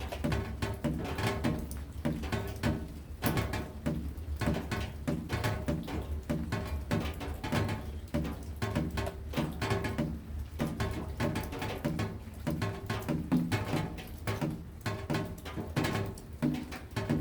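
Rain falling in a dense, irregular patter of sharp drops, some striking surfaces that ring with short pitched plinks, over a steady low rumble.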